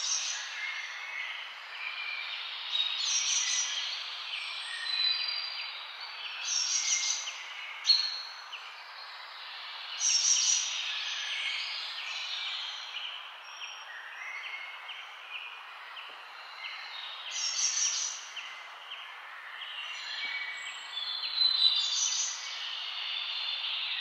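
Songbirds chirping and singing in short bursts every few seconds, over a steady background hiss.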